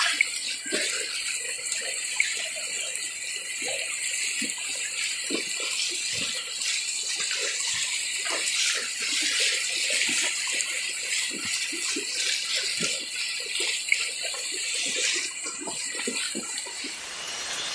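Rushing water of a shallow stream, with the repeated irregular splashing of people wading through it on foot.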